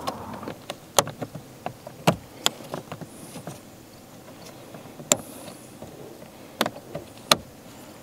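Irregular sharp clicks and taps of a hood release cable and plastic parts being handled and fitted at the hood release lever under the dashboard.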